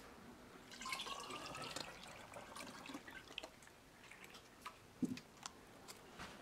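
Lemon juice concentrate poured through a funnel into a glass bottle, splashing and trickling, with a faint rising tone as the bottle fills. A short, light knock about five seconds in.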